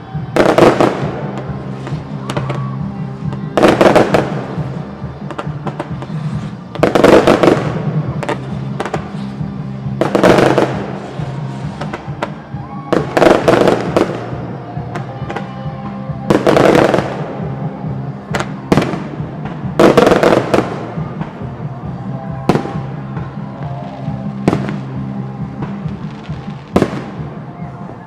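Fireworks display: large shells bursting about every three seconds, each a loud bang that fades over a second or so, with smaller sharp cracks in between. Music plays steadily underneath.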